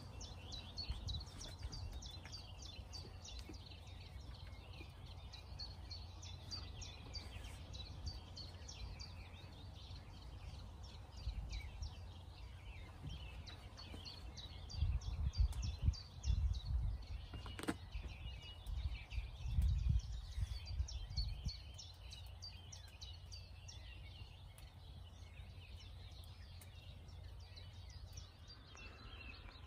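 Woodland birdsong: many small birds chirping and singing continuously, over a low rumble that swells twice in the middle, with one sharp click between the swells.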